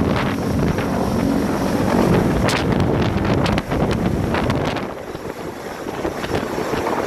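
Large transport helicopter taking off, its rotor downwash buffeting the microphone with heavy wind noise over the rotor and engine rumble. The noise eases somewhat about five seconds in.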